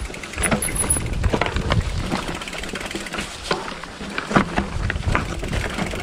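Plus-tire mountain bike going over rocks: irregular knocks and rattles, a few a second, over a steady low rumble.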